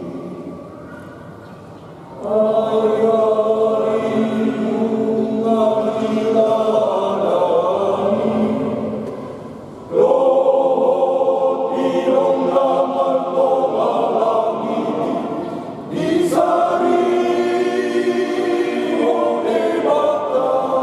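Men's choir singing a Batak Christian hymn together in long phrases, each new phrase starting after a brief dip about two, ten and sixteen seconds in.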